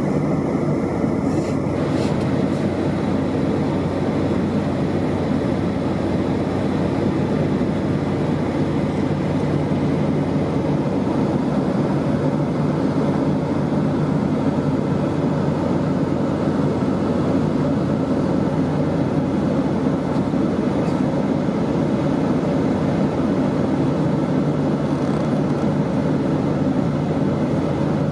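Boeing 757 cabin noise in flight: the steady drone of the Rolls-Royce RB211 engines and rushing airflow, heard from a window seat.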